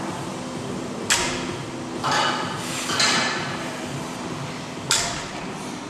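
Two sharp metallic clinks of barbell weight plates during deadlifts, one about a second in and one near the end. Between them come two short hissing bursts.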